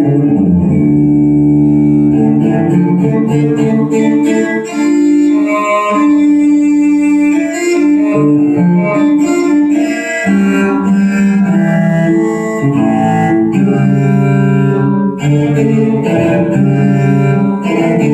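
Music played back through Technics SB-6000A loudspeakers driven by a Behringer A500 amplifier: held melodic notes over a strong bass line.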